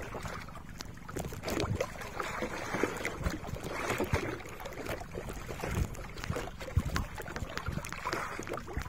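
Sea water sloshing and slapping against a small boat's hull in choppy water, in irregular swells with occasional knocks.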